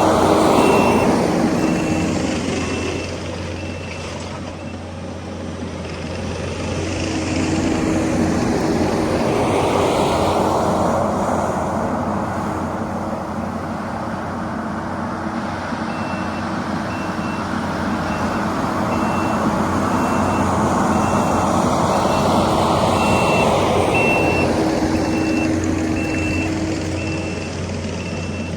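Kubota SVL65-2 compact track loader's diesel engine running under load as it rips and pushes dirt, the sound swelling and easing as it works. Its backup alarm beeps steadily while it reverses, briefly at the start and again through the second half.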